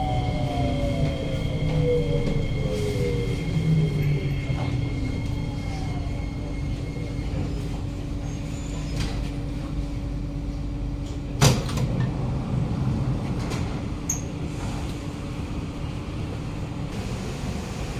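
Kawasaki-CRRC Sifang C151C metro train braking into a station: the traction motors' whine falls steadily in pitch over the first few seconds as it slows to a stop, over a steady low hum and rumble. A single sharp clack comes about eleven seconds in, when the doors are opening.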